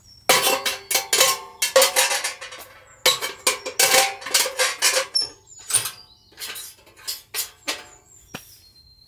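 Steel parts of a small portable wood stove clanking and scraping as a metal grate is slid into the firebox and the door is handled: rapid metallic knocks with short ringing, busiest in the first half, then sparser single knocks.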